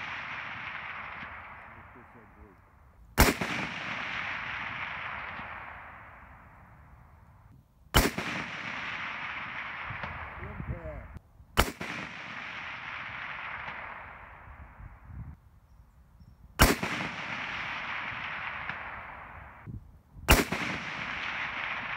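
M1917 Enfield bolt-action rifle firing .30-06: five single shots about four to five seconds apart, each followed by a long echo that dies away over a few seconds.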